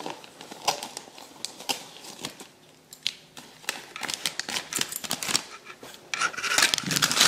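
Gift wrapping paper crinkling and tearing as a dog bites and pulls at it: a string of short, sharp crackles, with a louder stretch of rustling about six seconds in.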